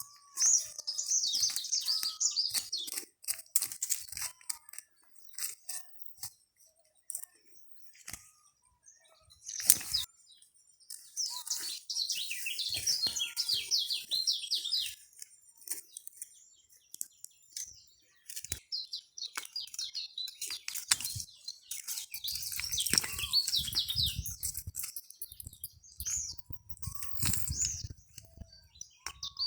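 Small bird calling in quick high chirping phrases, three bouts, among scattered crackles and rustles.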